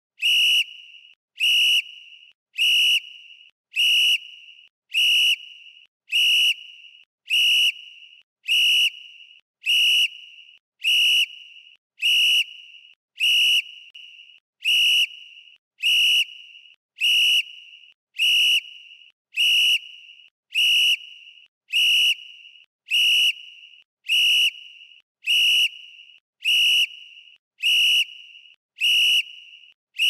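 Football referee's whistle giving short, sharp blasts of one high steady tone, repeated evenly about once a second, each dying away briefly after it stops.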